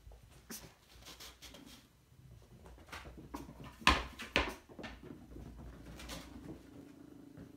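Puppies moving about among plastic agility equipment on carpet: scattered light knocks and clatters, with two sharp, louder knocks close together about four seconds in.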